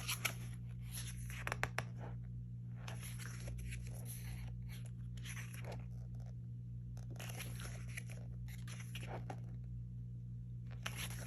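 Pages of a photobook being turned and handled, paper rustling and sliding in several separate bursts with small clicks, over a steady low electrical hum.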